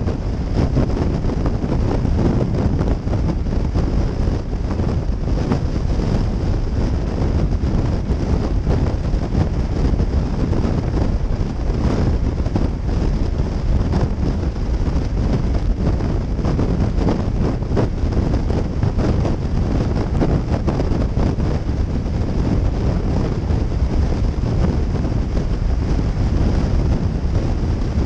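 Steady wind rush buffeting a helmet-mounted camera's microphone on a motorcycle cruising at highway speed, with the bike's engine and tyre noise mixed in underneath.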